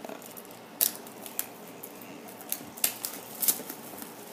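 Clear plastic shrink wrap being picked at and peeled off a cardboard box: scattered sharp crinkles and clicks.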